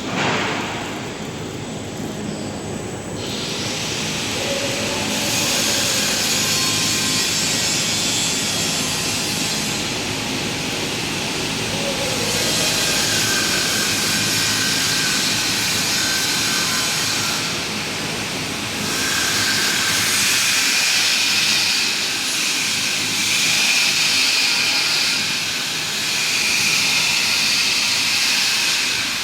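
Arc welding on pipe: a loud, steady hissing arc in long runs, breaking off briefly about ten and again about eighteen seconds in before it restarts.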